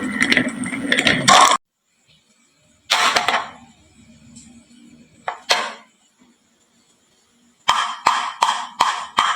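Marbles clattering down a wooden marble run for a second and a half, then cutting off. Single marbles then knock and clink, with a quick run of four knocks near the end.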